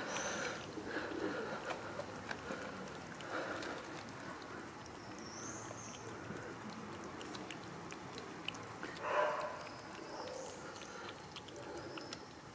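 A cat and her kittens eating wet cat food from a plastic tray, with many small chewing and smacking clicks. Birds chirp faintly now and then, and there is one short, louder sound about nine seconds in.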